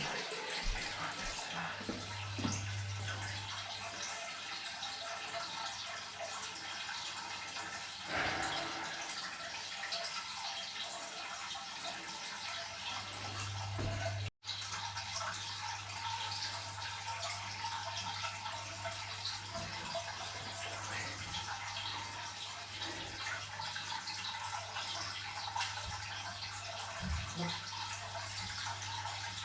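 Steady rush of water running out of a water tank through an opened drain valve, with a low hum underneath.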